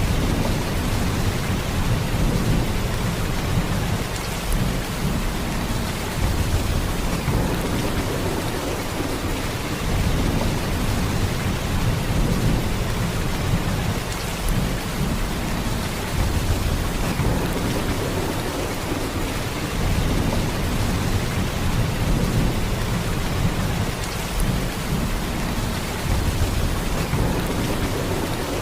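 Heavy rain, a steady downpour with a deep low end that swells and eases every few seconds.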